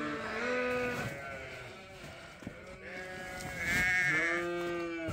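Several sheep bleating, long overlapping calls of different pitches, with a lull in the middle and the loudest call about four seconds in.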